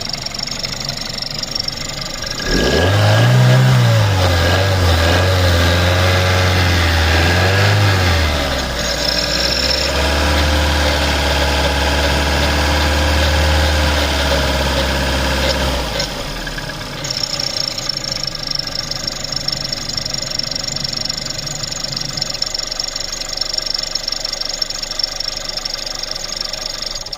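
Seat 1.4 TSI turbocharged four-cylinder petrol engine idling, then revved up about two and a half seconds in, held at raised revs, and dropped back to idle about two thirds of the way through. It carries a squeak and rattle with a faint knock underneath, which the owner places at the rear of the engine.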